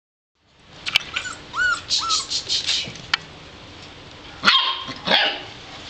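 Golden retriever puppies whining and yapping: a few short, high, arched whines about a second in, then a quick run of yaps, and two louder barks near the end.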